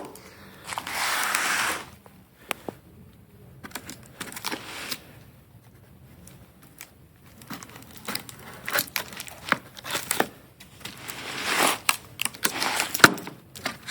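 Packing material being handled and pulled apart by hand: crinkling and rustling with scattered clicks, one longer scratchy stretch about a second in and a busier flurry near the end.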